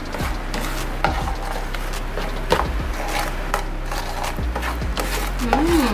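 Plastic spatula stirring a thick, creamy gravy in a frying pan, scraping and knocking irregularly against the pan.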